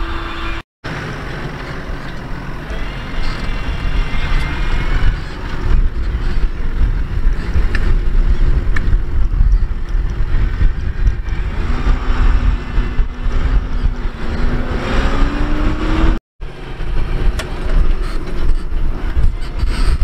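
New Holland T6.160 tractor's four-cylinder diesel engine running steadily under load as it pulls a reversible plough through the soil, a heavy low rumble. Its note rises about three-quarters of the way through, and the sound drops out briefly twice.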